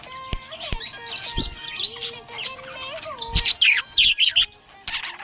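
Budgerigar chirping and warbling: a fast run of short, high chirps and clicks that grows busier and louder in the second half.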